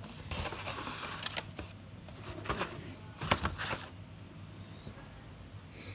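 Rustling of a plastic takeout bag, followed by a few knocks and clatters of takeout containers being handled, about two and a half and three and a half seconds in.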